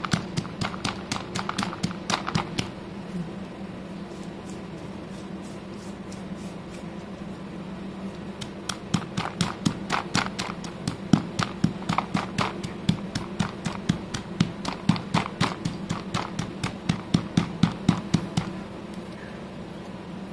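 Stone pestle pounding wet slate pencil pieces in a stone mortar: rapid crunching knocks, about four a second. A burst of knocks at the start gives way to a lull of several seconds with only faint taps, then a long run of knocks starts about eight seconds in and stops about two seconds before the end.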